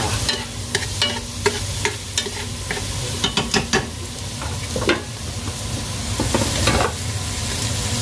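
Beef fat and beef intestine sizzling in a hot pan as they render down into their own cooking fat, with a utensil clicking and scraping against the pan again and again while they are stirred.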